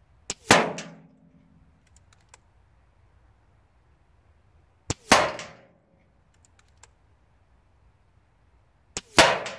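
Air Arms S510 SL Carbine .22 pre-charged pneumatic air rifle firing three shots about four seconds apart, each a sharp report with a brief ringing tail, just after a faint click. Light clicks sound between the shots.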